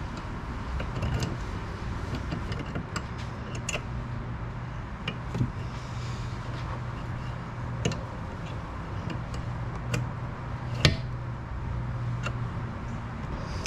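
Scattered sharp clicks and knocks, like metal parts and tools being handled, over a steady low hum. The loudest knock comes about eleven seconds in.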